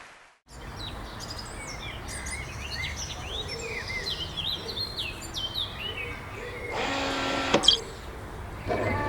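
Birds chirping in quick, repeated rising and falling calls over a steady low background noise. About seven seconds in, a short held pitched tone sounds for under a second, followed by a sharp click.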